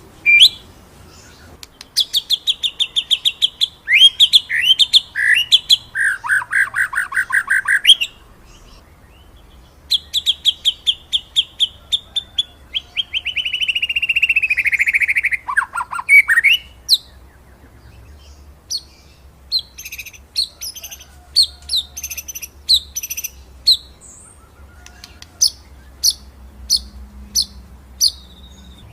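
White-rumped shama (murai batu) singing: rapid rolling trills and sweeping whistled notes, one long fast trill that falls in pitch, then a run of separate sharp high notes, with short pauses between phrases.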